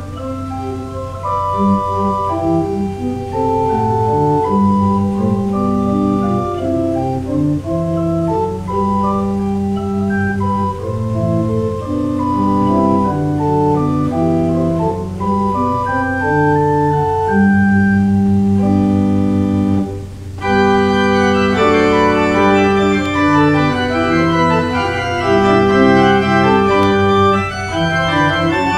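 Church organ playing offertory music in slow, sustained chords. About two-thirds of the way through it breaks off for a moment and comes back louder and brighter.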